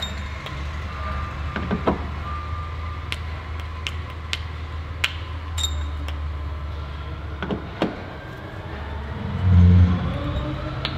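Light metallic clicks of small cylinder-head tappets being lifted out and set down in a storage tray, over a steady low hum. A dull thump comes near the end.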